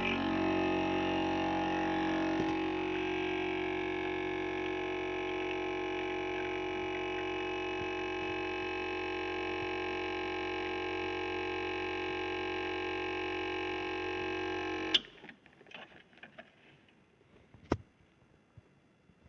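Espresso pod machine's pump buzzing steadily while it brews, then switched off suddenly about fifteen seconds in, followed by a few faint ticks.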